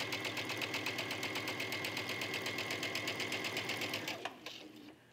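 Brother Essence Innov-is VM5200 sewing machine stitching a collar seam, with a steady, rapid, even rhythm of needle strokes. It slows and stops about four seconds in, as the seam nears its marked stopping point before the corner.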